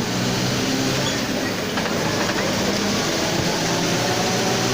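Mercedes-Benz OF 1721 BlueTec 5 city bus under way, heard from inside: a steady diesel rumble whose pitch shifts a couple of times, with the driveshaft growling loudly.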